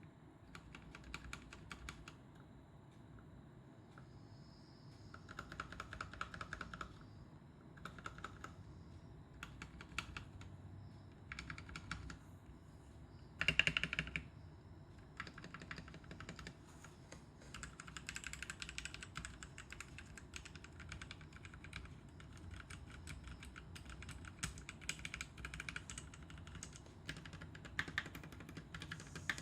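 Royal Kludge RK71 mechanical keyboard with lubed Outemu Red linear switches being typed on in quick bursts of keystrokes with short pauses between them. There is a louder cluster of strokes roughly halfway through.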